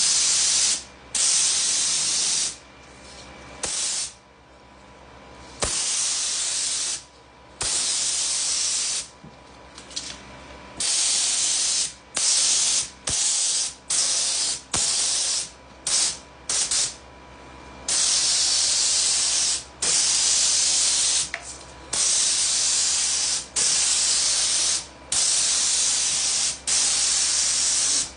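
HVLP spray gun spraying satin lacquer onto cabinet panels, its trigger pulled in repeated bursts of hiss that start and stop sharply. The bursts are short and frequent at first, then become long steady passes in the second half.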